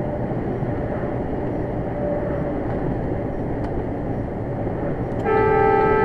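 Steady diesel engine and road rumble inside a truck's cab, then about five seconds in the truck's horn blasts one steady note for over a second as a van pulls out in front.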